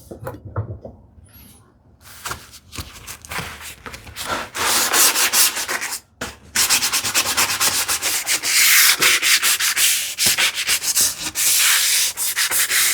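Sandpaper rubbed by hand along a wooden edge in quick back-and-forth strokes, easing a sharp corner. The strokes start light and get louder about four seconds in, with a brief pause partway through.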